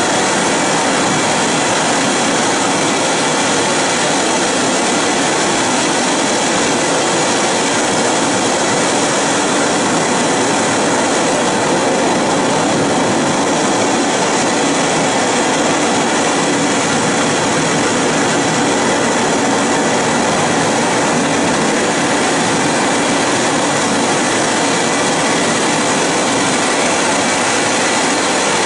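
Loud, steady rushing noise, an even hiss like static with no pitch, rhythm or breaks.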